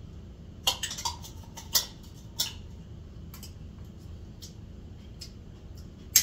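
A spoon clinking and scraping against a container of chicken salad as it is stirred and scooped. There are a handful of sharp clinks in the first two and a half seconds, a few faint ticks after, and one loud clink near the end.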